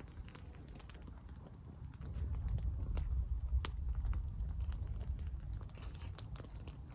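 Burning straw and leaves crackling, with irregular sharp pops, over a low rumble of breeze on the microphone that grows louder about two seconds in.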